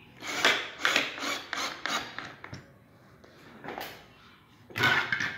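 Cordless drill-driver driving screws through a concealed cabinet hinge into a wooden door, in a run of short bursts over the first couple of seconds and again briefly near the end.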